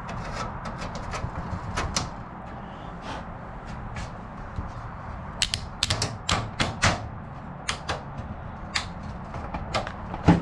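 Irregular sharp metallic clicks and taps as temporary rivets are fitted into the holes of an aluminium wing spar with a small hand tool, with a quick run of clicks around the middle.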